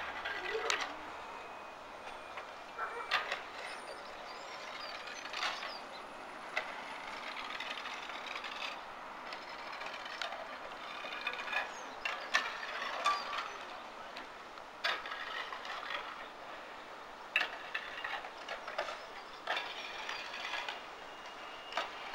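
Irregular sharp clinks and clatters of roof slates being stripped off by hand and dropped onto the slate pile, about fifteen in twenty seconds, over a steady background hiss.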